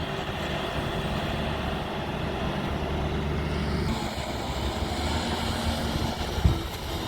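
JCB backhoe loader's diesel engine running steadily while working, with a dull thump about six and a half seconds in.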